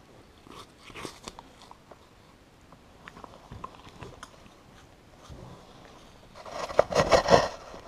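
Capybara biting and chewing a frozen ice pop, wet crunches of ice at close range: scattered small crunches, then a louder burst of crunching near the end.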